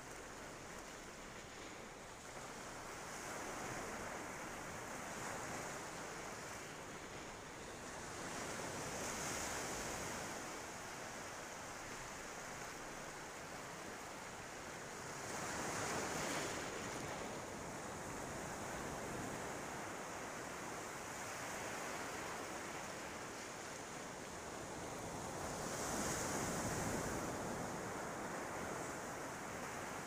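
Ocean surf washing onto a beach: a steady hiss of waves that swells each time a wave breaks. The loudest waves come about halfway through and again a few seconds before the end.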